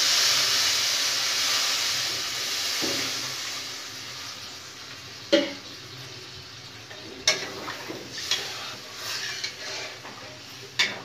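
Water poured into a hot wok of fried taro and spice paste hisses and sizzles, the hiss slowly fading over about four seconds. Then a spatula knocks sharply against the pan a few times as the thinned curry is stirred.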